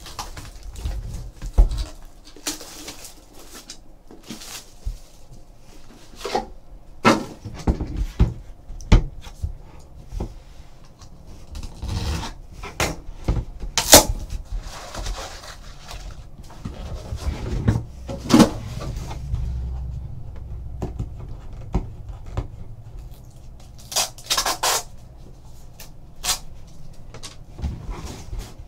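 Hands handling a sealed trading card box: the plastic shrink-wrap peeled and crinkled off, the box's hinged lid opened and the inner box lifted out and set down, giving scattered taps, rustles and knocks. The sharpest knock comes about halfway through, as the lid is handled.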